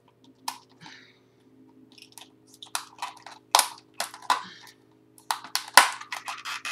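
Small taped cardboard box being handled and picked open: irregular scrapes, taps and crinkles, coming thicker in the second half, over a faint steady hum.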